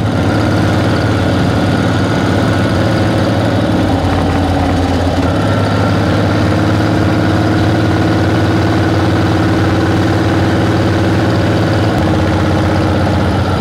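An old Harley-Davidson flathead V-twin motorcycle engine running in gear at low revs while it is used to brake the bike. The steady note shifts in pitch slightly about five seconds in and again near the end.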